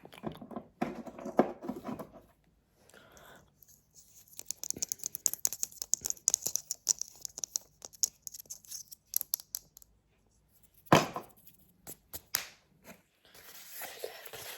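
Close-miked ASMR trigger sounds: rapid crinkling and scratching on objects for several seconds, then one sharp knock just before eleven seconds in, followed by more scratching.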